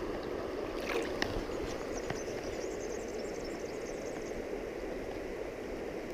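Stream water running steadily, with a couple of faint clicks about a second in.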